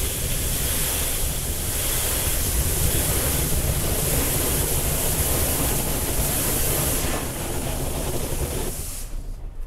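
Automatic car-wash machine washing a car, heard from inside the cabin: a loud, steady hiss of water spraying and the washer's brushes beating on the body and glass, over a low rumble. The spray cuts off sharply near the end, leaving a quieter rumble.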